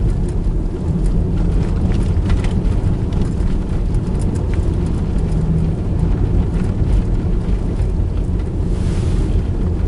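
Car driving through deep snow on an unplowed gravel road, heard from inside the cabin: a steady low rumble of engine and tyres with scattered light ticks, and a short rush of hiss near the end.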